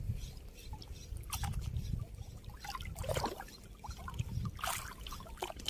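Sea water trickling and lapping, with scattered small splashes.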